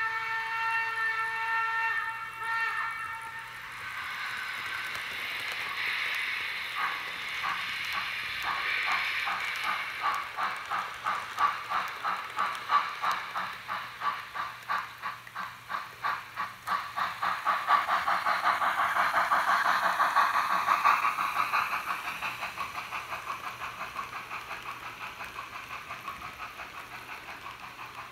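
Roco BR 01 model steam locomotive's sound decoder playing one long steam whistle, then a hiss of steam, then exhaust chuffs. The chuffs start about seven seconds in and quicken as the locomotive pulls away, blurring into a continuous rush of beats by about eighteen seconds.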